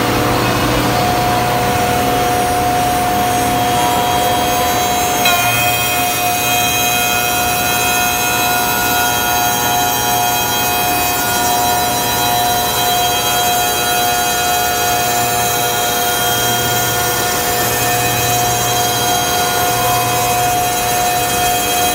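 Woodmaster CNC four-axis copy shaper running, its cutter spindles and sanding drums shaping a curved wooden workpiece with a steady, high, multi-toned whine over the noise of cutting. A short knock about five seconds in, after which more high tones join the whine.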